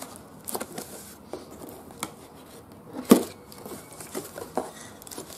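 Cardboard box being opened with a kitchen knife: the blade slitting the tape and the flaps being pried up, scattered scraping and rustling clicks with one louder knock about three seconds in.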